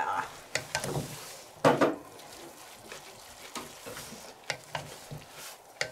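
A spoon scraping and knocking against a bowl as a noodle salad is stirred: a few separate clinks and scrapes, the loudest just before two seconds in, with fainter ones later.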